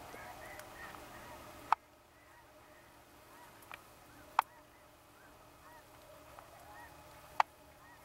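A distant flock of geese honking, many short calls overlapping continuously. Three sharp clicks stand out louder, at about two, four and seven seconds in.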